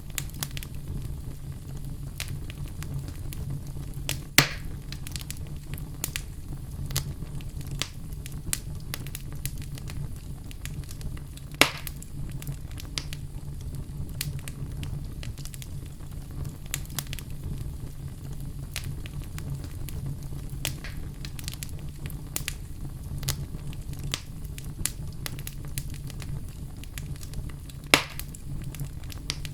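Oak logs burning in a fireplace: a steady low rumble of the flames under constant small crackles, with three louder, sharper pops spread through.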